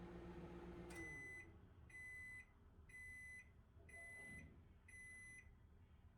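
Kitchen appliance's electronic beeper sounding five even, high beeps, each about half a second long and about one a second.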